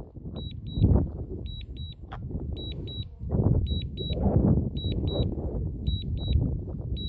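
Drone controller beeping in pairs of short high beeps, about one pair a second: the warning tone of a drone coming down in automatic landing. A low, uneven rumble runs underneath.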